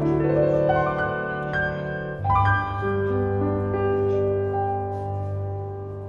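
Background piano music: slow, held notes, with a new chord struck about two seconds in.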